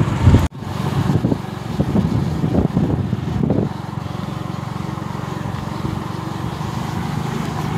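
Motorbike engine running steadily while riding, with wind and road noise on the microphone. There is a brief sharp dropout about half a second in, and the engine hum settles into an even drone from a little before the middle.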